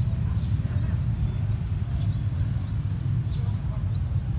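A bird repeating a short rising chirp about every half-second over a steady low rumble.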